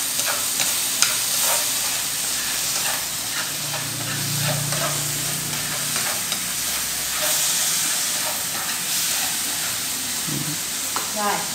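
Snails and seasonings sizzling steadily in a nonstick frying pan on a gas stove, with chopsticks clicking against the pan now and then as they are stirred. It is a dry stir-fry, with the seasonings worked in before any water is added.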